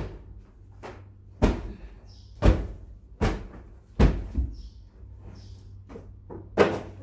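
Irregular sharp thumps and snaps, five of them loud, as bedding is swung, dropped and spread on a bare mattress, over a steady low hum.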